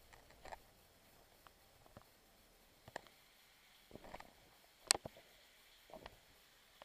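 Scattered faint scuffs and clicks of someone clambering over rock while handling the camera, with one sharper click about five seconds in.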